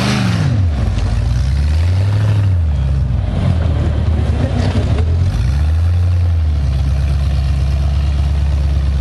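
Engine of an extreme off-road trial prototype buggy working a steep climb, its revs rising and falling about three times, then running at a steady speed from about two-thirds through.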